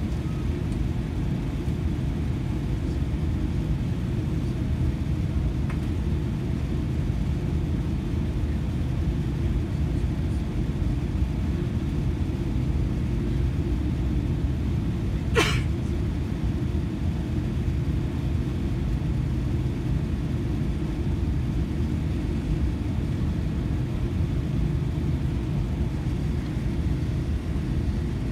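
Steady low cabin rumble of a taxiing Boeing 787-10, its engines at taxi idle, heard from inside the cabin. There is a single sharp click about halfway through.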